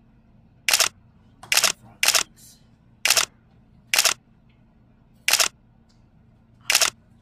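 Camera shutter clicks, seven in all, each short and sharp, coming at uneven gaps of about half a second to a second and a half.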